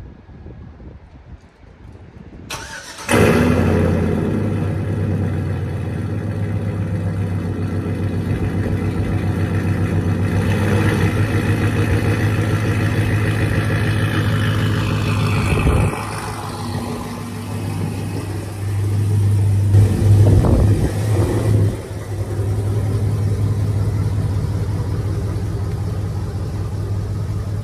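Lowered Chevrolet Silverado pickup's engine starting about three seconds in, then running as the truck is driven a short way, pitch rising and then dropping, a few brief revs, and a steady idle near the end.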